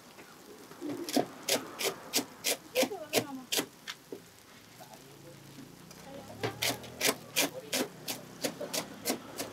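A cook's utensil striking in two runs of quick, even strokes, about three a second, with a pause of a few seconds between the runs.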